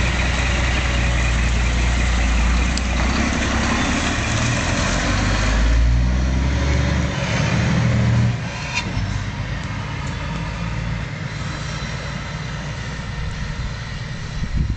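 Scania R420 truck's straight-six diesel running with no muffler: a deep, loud exhaust rumble that climbs in pitch as the truck pulls away. About eight seconds in it drops sharply in level and carries on as a quieter rumble while the truck moves off.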